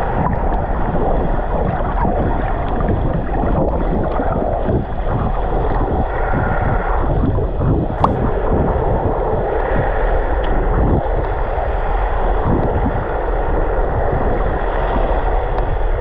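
Steady, muffled rush and slosh of water on an action camera held at the surface by a swimmer, with a single sharp click about eight seconds in.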